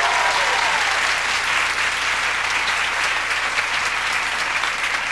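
Studio audience applauding, a steady clatter of many hands clapping to welcome the performers.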